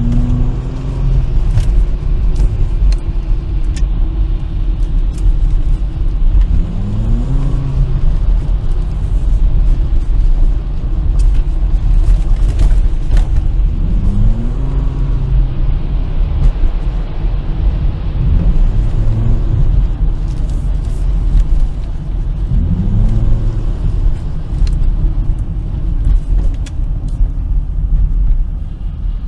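Volvo 2.4-litre non-turbo five-cylinder petrol engine, its air filter removed, pulling hard under repeated accelerations. The pitch climbs and drops back about six times over a steady low rumble.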